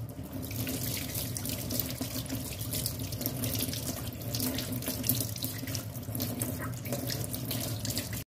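Kitchen tap running steadily into a stainless steel sink while soapy hands are rubbed and rinsed under the stream, water splashing off the hands.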